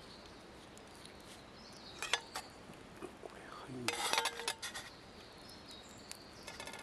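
Metal cookware and utensils clinking and clattering while cooking over a camp stove: a couple of sharp clicks about two seconds in, then a denser clatter around four seconds.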